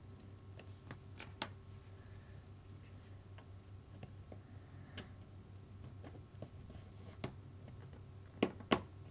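Faint, scattered clicks and taps of small plastic and metal RC car parts being handled while a hinge pin and 1mm shim are fitted to a suspension arm, with two sharper clicks close together near the end, over a low steady hum.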